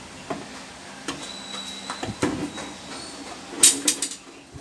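Hands working inside the plastic casing of a diamond dermabrasion machine, making a series of clicks and knocks as parts are handled and fitted, the sharpest pair of clicks near the end.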